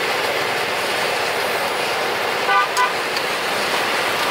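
A vehicle horn sounds two short beeps about two and a half seconds in, over a steady hiss of street noise.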